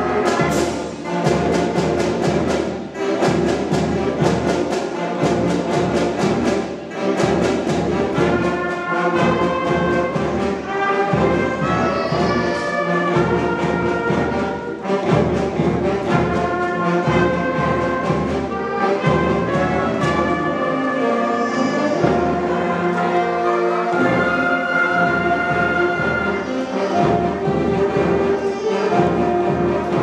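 Middle school concert band playing a piece: clarinets, saxophones, flutes, brass and sousaphones hold and change chords, with regular percussion strikes keeping the beat.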